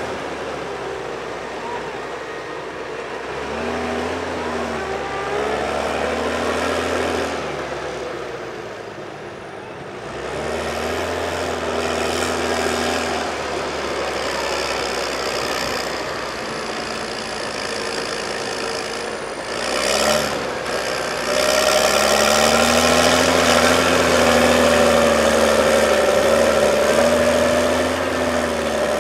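Case IH Puma 225 CVX tractor on rubber tracks, its six-cylinder diesel running under load while pulling a six-furrow plough through wet soil, the engine note wavering up and down. A single clank sounds about twenty seconds in, and the tractor grows louder after that as it comes close.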